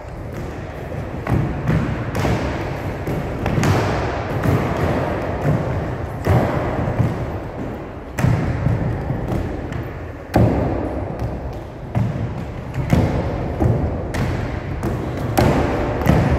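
Irregular thuds of children's feet landing on a wooden gym floor as they jump over low benches, with running footsteps in between. The thuds come roughly every one to two seconds and echo in the large hall.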